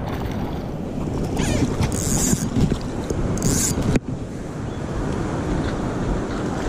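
Wind rumbling on the microphone over the steady rush of river water, with two brief high hisses about two and three and a half seconds in.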